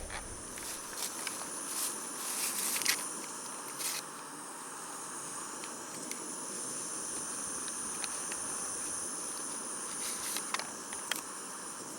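Steady high-pitched insect trill over a constant hiss, with scattered light clicks and scrapes of camp utensils, a cluster near the start and a few more near the end.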